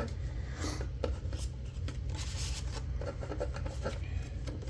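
Paper and card rustling and rubbing, with small light taps, as the unboxing paperwork is handled; a steady low hum runs underneath.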